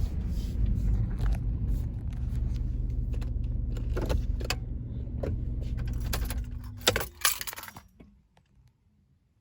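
Subaru car engine idling, then switched off about seven seconds in, the hum cutting out suddenly. Keys jangle and click in the ignition around the shut-off, then it goes quiet.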